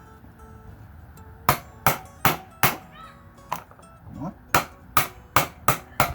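Hammer strikes: about ten sharp blows, in a quick run of four, a single one, then a quick run of five.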